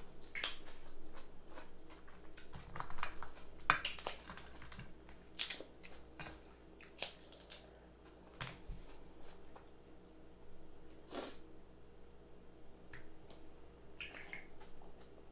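Crab legs being eaten close to the microphone: irregular cracks and snaps of shell, squishy sounds of meat being pulled out, chewing and smacking, loudest around four seconds in.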